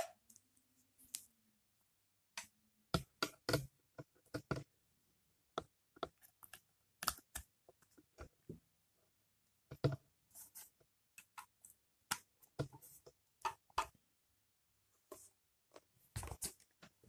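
Scattered light clicks and knocks of cables and connectors being handled and plugged into a small metal desktop DAC, coming at irregular intervals.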